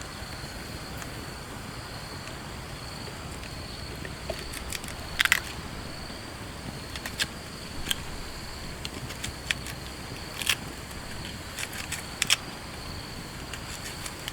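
Steady outdoor hiss with a continuous high-pitched whine, and from about four seconds in a scattering of irregular sharp clicks and taps.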